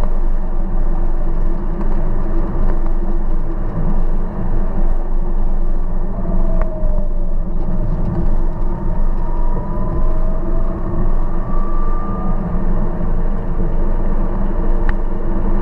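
A car driving along a road: a steady engine and road rumble, with a faint tone climbing slowly in pitch around the middle.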